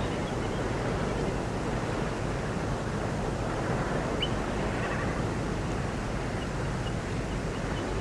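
Spring morning nature ambience: a steady rushing background with faint, scattered bird chirps, one a short rising note about halfway through.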